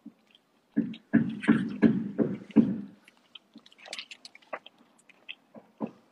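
A man making a quick run of short, rhythmic vocal sounds with his mouth for about two seconds, then scattered soft mouth clicks and smacks.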